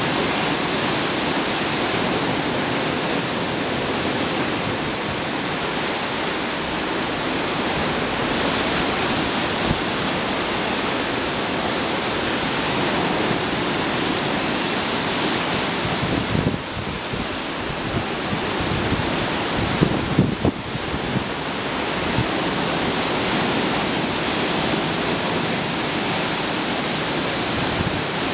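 Steady rushing of sea water churned up by a moving ship, mixed with wind, an even hiss. A few brief low thuds, like wind buffeting the microphone, come past the middle.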